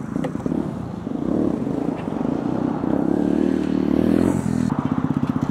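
Small single-cylinder 125cc-class pit bike engine running, its pitch rising as it is revved, then settling about four and a half seconds in to a fast, even pulsing beat.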